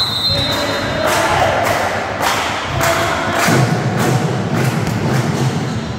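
A drum beaten in a steady rhythm, about two beats a second, over dense crowd-like noise, as from fans' drumming in the stands of a sports hall. A steady high whistle tone stops about a second in.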